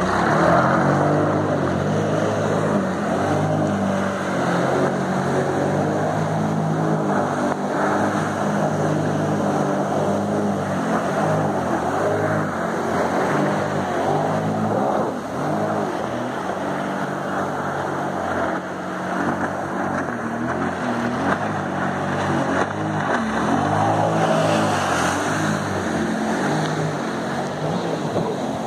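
Jet ski engine running at speed, its pitch rising and falling with the throttle, over the rush of spray and wind as the craft skims across the water.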